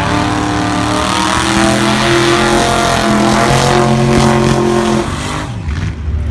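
Gasser drag car doing a burnout: its engine is held steady at high revs while the rear tyres spin and smoke. The revs drop off about five seconds in.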